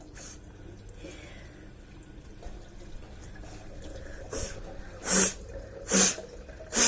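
Person sneezing in quick succession, set off by a sutra neti thread in the nostril: a softer sneeze about four seconds in, then three sharp ones a little under a second apart.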